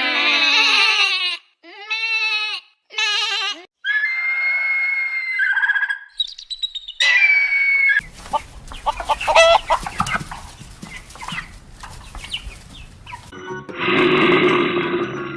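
A string of separate animal calls cut one after another, short pitched calls with brief silences between them, then a noisier stretch with chirping. Near the end a dense, steady, music-like sound comes in.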